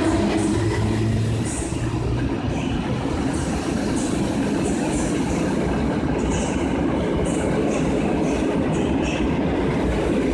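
PKP Intercity electric-hauled passenger train passing close by. The locomotive's low hum fades over the first second or two, then the coaches roll past with a steady rumble of wheels on rail and irregular brief high squeaks.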